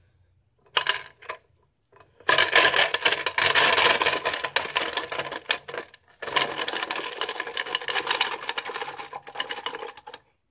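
Vinegar poured from a jug into a glass jar of lead bullet cores, running in two long pours with a brief break about six seconds in. A couple of short knocks come about a second in.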